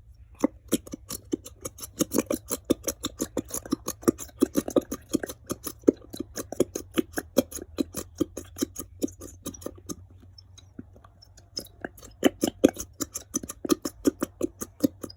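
Rapid, rhythmic clicks and scrapes, about five a second, from a utensil working slime ingredients in a container; they ease off briefly about ten seconds in, then pick up again.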